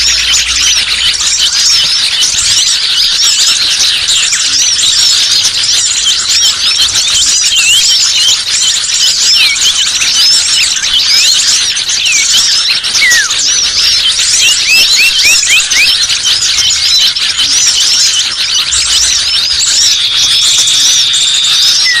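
Bird-lure recording of many small songbirds chirping and twittering at once, a loud, dense chorus of rapid high calls overlapping without pause, with a steady high trill near the end. It is a noisy mixed lure call ('pikat ribut') meant to draw small birds down.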